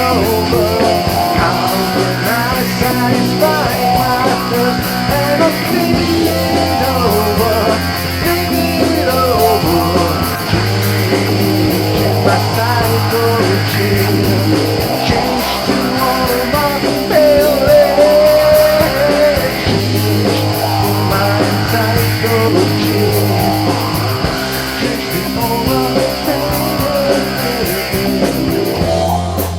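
Rock band playing an instrumental passage: electric guitar, bass guitar and drums, with a lead line of bending, wavering notes above a bass line that shifts every few seconds. The drums drop out right at the end.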